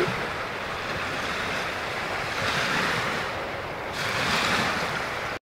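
Lake waves washing against the shore, with wind on the microphone; the wash swells twice and cuts off suddenly near the end.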